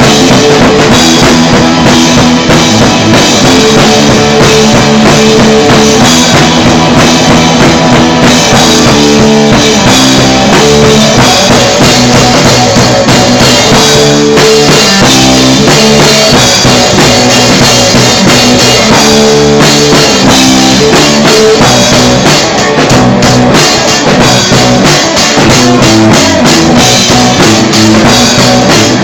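Punk rock band playing a loud instrumental passage on drum kit, distorted guitar and bass, with no singing.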